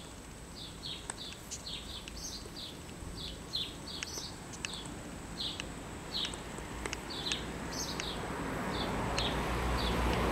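A small bird chirping over and over, short high chirps a few times a second. A rising rush of noise builds near the end.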